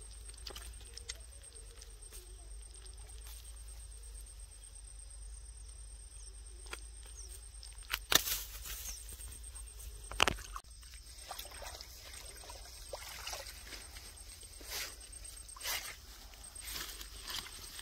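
Hands taking a hooked fish off the line: handling and rustling noises with two sharp knocks about eight and ten seconds in, then grass rustling underfoot near the end, over a faint steady high whine.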